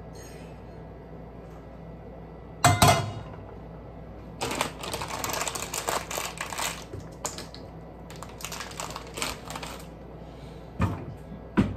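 A metal frying pan set down with a loud clank on a gas stove grate, then several seconds of rapid crackling as a plastic food package is crinkled and handled, and two short knocks near the end.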